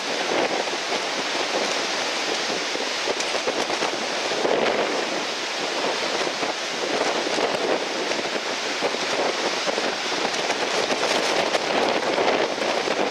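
Strong typhoon-driven wind buffeting the microphone, a loud, steady rushing with a fine crackle that swells a little now and then, mixed with the wash of surf.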